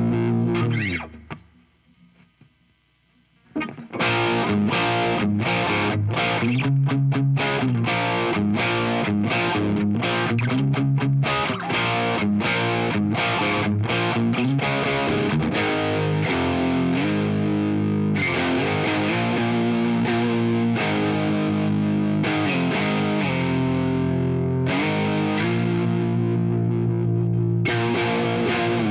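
Electric guitar through an MXR Duke of Tone overdrive pedal, playing a distorted riff of ringing chords and fast, choppy picked strokes. It cuts out about a second in and comes back in about two seconds later.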